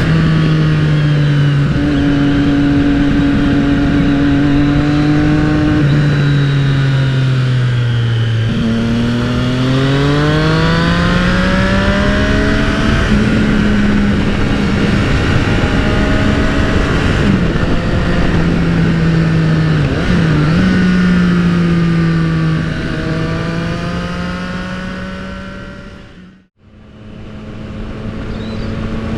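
Triumph Street Triple's inline-three engine under way, its note holding steady, then dropping and climbing again as the rider rolls on the throttle about eight seconds in, over steady wind rush. Near the end the sound fades out briefly and comes back.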